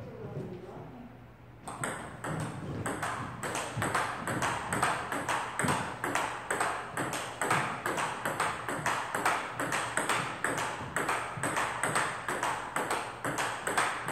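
Table tennis rally: a celluloid-type ping-pong ball struck back and forth, a quick, steady run of sharp clicks as it hits the paddles and bounces on the table, starting about two seconds in.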